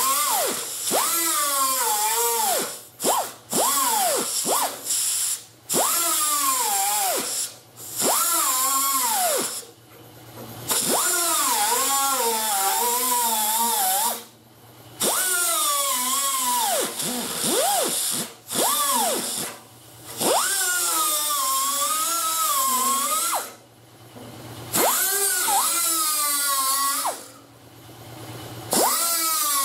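Power grinder cutting sheet steel in repeated bursts of one to three seconds, trimming old holes square in a car body panel. Its whine sags in pitch as it bites into the metal and climbs again between cuts.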